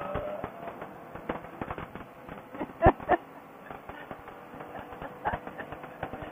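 Crackling on the recording's audio: irregular clicks and pops, with two loud cracks in quick succession about three seconds in, over a faint steady hum.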